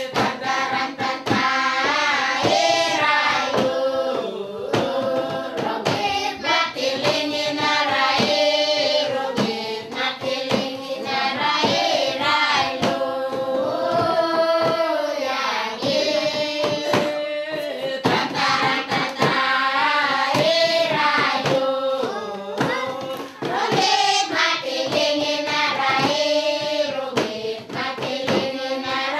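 Background music: several voices singing together over a steady percussive beat.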